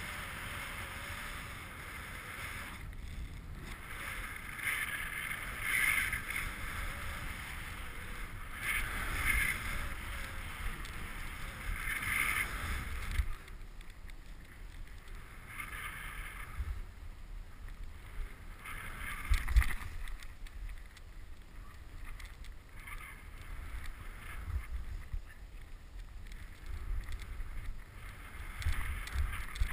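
Turns through deep powder snow on a fast descent: a hissing swish of snow that swells every three to four seconds with each turn, over a steady rumble of wind on the microphone.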